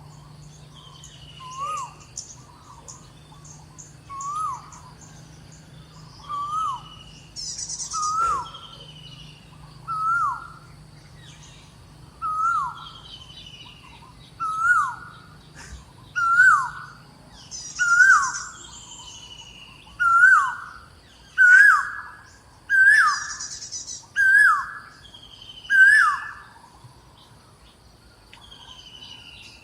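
A bird calling a repeated whistled note that rises then drops, about one every one and a half seconds, growing louder and slightly higher before stopping near the end. Other birds chirp and give falling higher-pitched notes around it.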